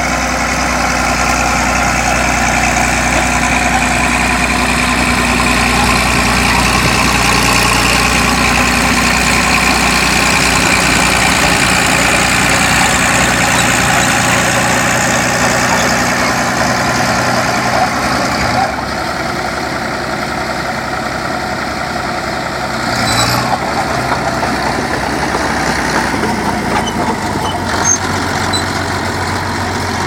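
Vintage crawler bulldozer engine running steadily under load as the machine pushes earth with its blade. Past the middle the engine note drops and eases, and a single sharp clank follows a few seconds later.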